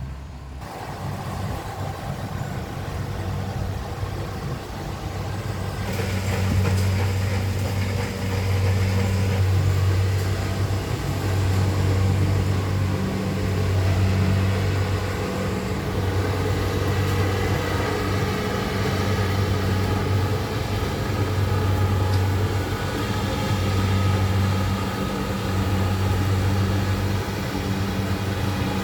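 Rice harvester running: a steady low engine hum that swells and fades every couple of seconds over the noise of its machinery, growing louder about six seconds in.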